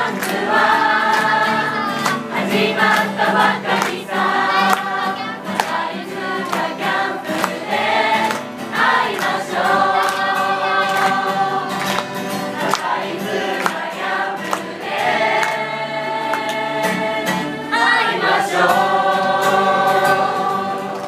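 A group of voices singing a camp song together in unison, with an acoustic guitar strummed along.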